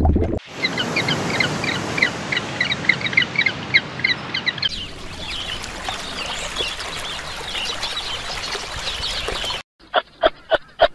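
Shallow water trickling over stones while a small bird chirps repeatedly, about three short chirps a second. Near the end, after a brief break, a quick run of about five short pitched calls.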